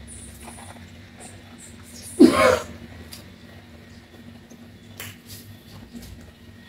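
A person's short, loud vocal outburst about two seconds in, over quiet room tone, followed by a couple of faint ticks.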